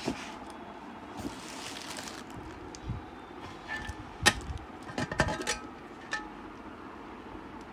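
Stainless steel pressure cooker lid being handled and lifted off the pot, with a cluster of sharp metal clinks and knocks, some briefly ringing, from about four to five and a half seconds in and one more shortly after.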